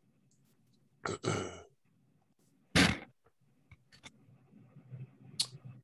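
A person breathing out near the microphone, with two short sigh-like breaths (the second the louder), then a few faint clicks over a low hum.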